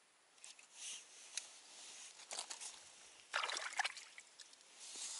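A fish being hauled up through an ice-fishing hole on a short winter rod: water splashing and trickling in the hole, with the loudest splashing about three and a half seconds in as the fish comes out of the water.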